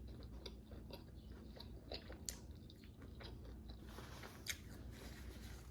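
A person chewing crispy, hard-fried chicken wings close to the microphone: steady chewing full of small crackles, with sharper crunches about two seconds in and again just past four seconds.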